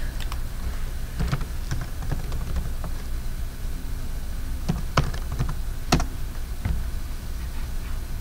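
Typing on a computer keyboard: irregular key clicks, with two sharper clicks about five and six seconds in, over a low steady hum.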